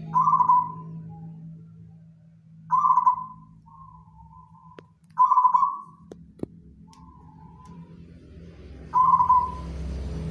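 Zebra dove (perkutut) cooing in its cage: four loud coos at the same pitch, a few seconds apart, the second and third each followed by a softer run of trailing notes. Two faint clicks come in the middle.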